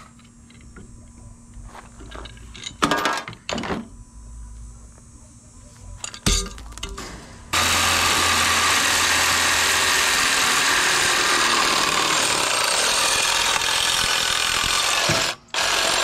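Cordless reciprocating saw cutting through a generator frame's steel handle tube. The saw starts suddenly about halfway in and runs loud and steady, with a brief stop near the end. Before it there are a few light knocks and clicks from handling the parts.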